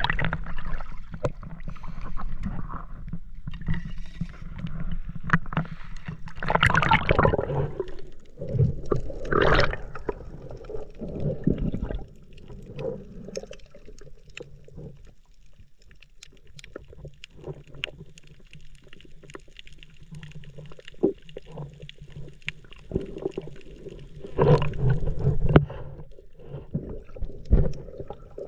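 Muffled water sloshing and gurgling heard through a camera held at and under the water surface, with scattered knocks and bumps as it is handled. The sound rises in several louder surges and dips quieter in between.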